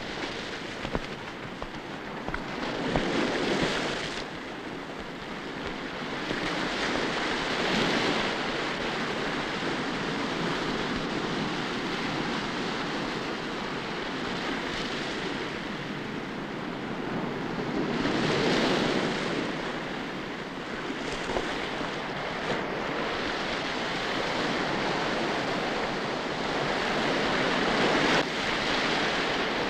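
Ocean surf breaking on a beach, the wash rising and falling in slow swells every several seconds, with wind.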